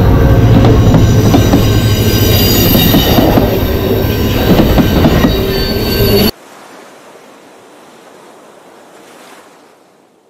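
Canadian Pacific freight train, locomotive and covered hopper cars, passing close and loud, with high wheel squeal over the running noise. It cuts off abruptly about six seconds in, leaving a faint hiss that fades away.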